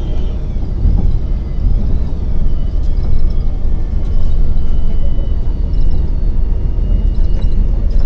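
New Flyer city bus under way, heard from inside the cabin: a steady low engine and road rumble, with a high whine that wavers up and down in pitch for the first few seconds.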